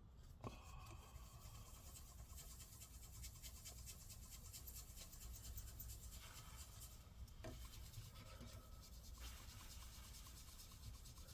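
Paper towel with isopropyl alcohol rubbed back and forth to wipe old thermal paste off a laptop's cooling surfaces: a faint, fine scratchy rubbing, with a light tap about half a second in and another about seven seconds in.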